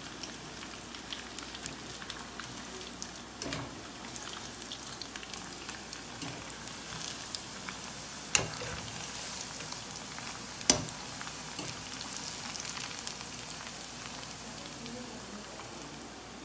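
Cheese balls deep-frying in hot oil in a wok: a steady crackling sizzle full of small pops. Two sharp knocks stand out, about eight and eleven seconds in.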